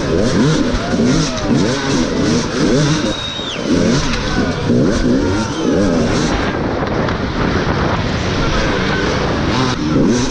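Enduro dirt-bike engine revving hard in quick repeated bursts, its pitch rising and falling with each blip of the throttle as the bike is ridden over obstacles.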